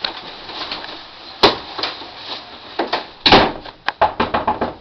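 Knocks and bangs at a room door: a sharp knock about one and a half seconds in, a louder bang a little after three seconds, then a quick run of knocks.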